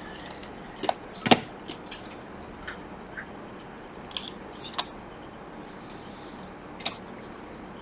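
Small sharp clicks and taps, about nine scattered unevenly, the loudest about a second and a quarter in: tools and small parts being handled on a laptop repair bench.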